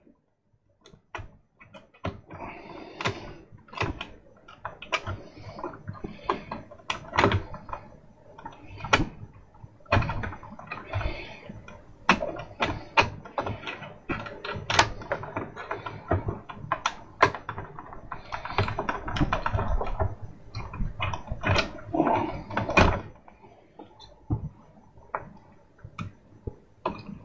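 Needle-nose pliers working wire strands around a terminal post inside a CD player: irregular clicks, taps and scraping with rustling handling noise in between.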